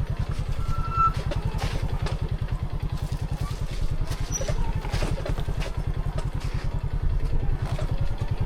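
Motorcycle engine running steadily under way, with an even, fast low beat.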